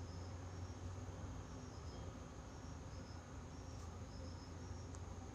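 Faint background noise: a steady low hum with faint, intermittent high-pitched chirps.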